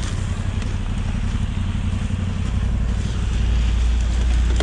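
Motorcycle engine idling steadily, a little louder in the second half.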